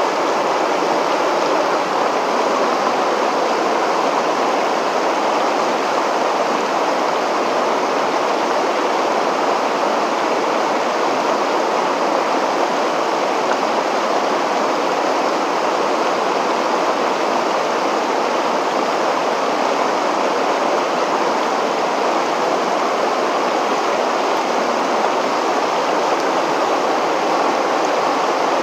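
Water rushing steadily over a river weir and churning into white water below it: a constant, unbroken rushing noise.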